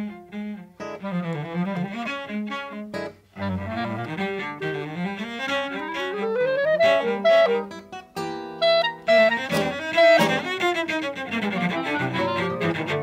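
Chamber trio of clarinet, cello and classical guitar playing, with the cello to the fore. There is a short break about three seconds in, then long rising runs.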